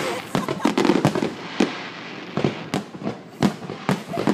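Aerial firework shells bursting in a grand finale: a dozen or more sharp bangs in quick, irregular succession, some nearly overlapping.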